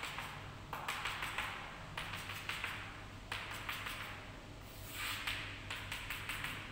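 Chalk on a blackboard: runs of rapid taps as rows of dots are stippled onto the board, and scraping strokes near the end as a small circle is drawn.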